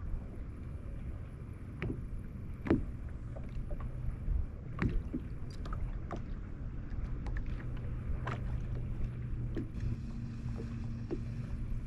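Sounds from a fishing boat on the water: a low, steady rumble of wind and water, with scattered sharp clicks and knocks, the loudest about three and five seconds in. A faint steady hum joins about six seconds in.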